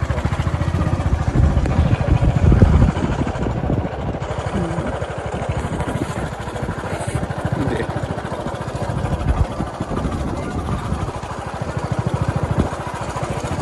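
Motorcycle engine running steadily as the bike rides along a rough dirt track, with a continuous low rumble.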